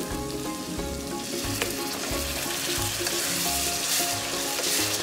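Chopped onion and ginger-garlic paste sizzling in hot oil in a metal kadai, stirred with a slotted metal spatula that scrapes and clinks against the pan. The sizzle grows louder about halfway through as the onion goes in.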